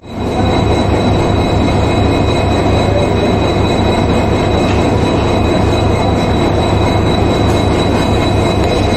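A WDG-4 diesel-electric locomotive's 16-cylinder two-stroke EMD 710 engine running steadily at idle close by, a low drone with a thin steady high whine over it.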